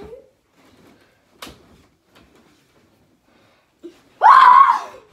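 A child's high-pitched scream, loud and lasting under a second, about four seconds in; earlier, a single soft thud.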